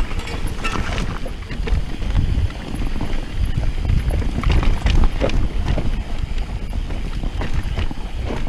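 Mountain bike riding fast down a dirt singletrack: wind buffeting the camera microphone with a heavy low rumble, and the tyres and frame rattling and knocking irregularly over roots and bumps.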